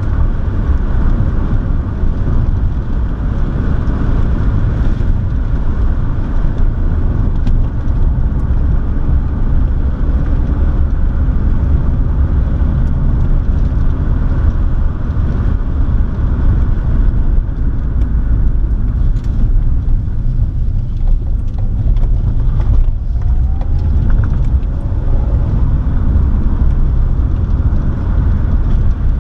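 Car driving along, with its engine and the rumble of tyres on the road heard from inside the cabin; a loud, steady, low drone.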